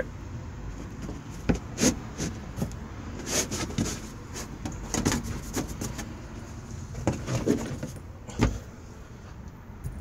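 Irregular knocks, clunks and scrapes of things being handled around a car trunk's spare tire and jack, with sharp knocks scattered through and a heavier one near the end.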